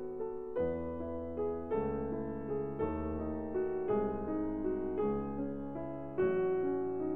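Background piano music: gentle notes and chords, a new one struck about once a second and left to fade.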